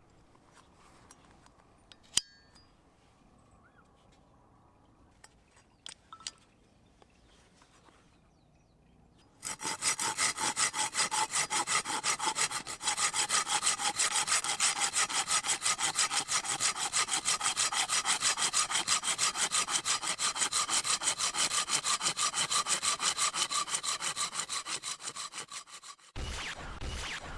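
Hand pull saw cutting wood for firewood in quick, steady, even strokes, starting about nine seconds in and stopping near the end; before it only a few faint clicks. The saw cuts very easily, needing little pulling force.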